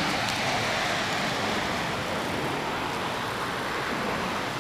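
Santiaguito lava dome's explosive eruption: a steady rushing roar from the rising ash-and-gas column, easing off very slightly.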